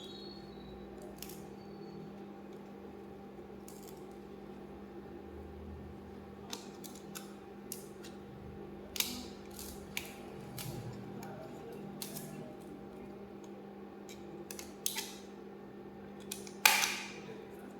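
Scattered small clicks and taps of a laptop RAM module being handled and pushed into its memory slot, the loudest snap coming near the end. A steady low hum runs underneath.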